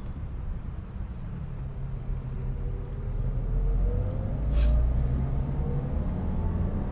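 A small child snoring in sleep: a low, fluttering rumble that swells about halfway through.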